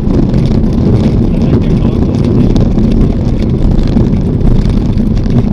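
A light single-engine propeller aircraft's engine and propeller running steadily as the plane rolls down the runway after touchdown, a loud, even low rumble mixed with wind noise on the microphone.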